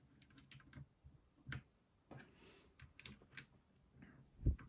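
Plastic keycaps being pressed onto the Jelly Pink switch stems of an Akko 3068B Plus mechanical keyboard: a string of irregular light clicks and taps as they snap into place, with a heavier knock near the end.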